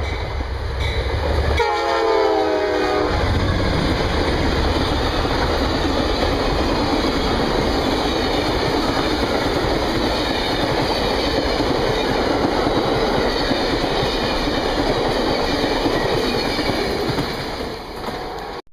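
Amtrak GE Genesis diesel locomotive blowing its horn in a short blast about two seconds in, then the passenger train rushing past close by with a steady roar of wheels and clickety-clack over the rail joints, easing slightly near the end before cutting off.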